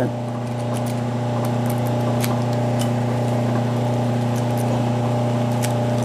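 Key-cutting machine's electric motor running with a steady hum, with a few faint clicks from keys and the lock cylinder being handled.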